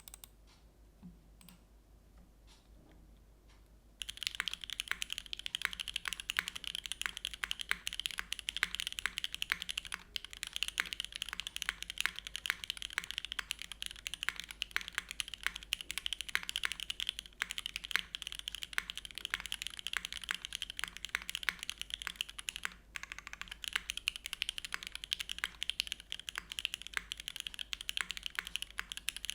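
Mechanical keyboard typing on a Geonworks Frog Mini with lubed Gateron Everfree Curry switches, GMK keycaps and an aluminium plate on a Tadpole mount. A few single keystrokes come first, then fast continuous typing from about four seconds in, with a brief pause about three-quarters of the way through.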